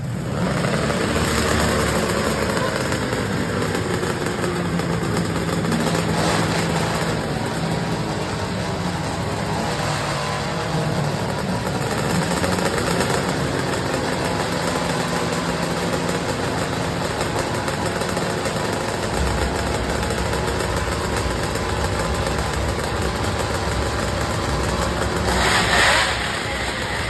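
The engines of a twin-engine modified garden pulling tractor running through open upright exhaust stacks, mostly idling, with the pitch rising and falling at times and a brief, louder rev near the end.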